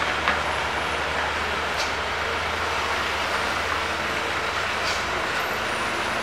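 Heavily loaded dump truck's diesel engine running steadily as it pulls slowly around a hairpin bend, with road noise.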